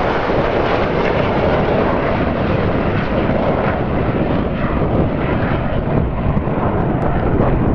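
Red Arrows' BAE Hawk T1 jets flying past in formation, a loud, steady rush of jet noise with no clear pitch.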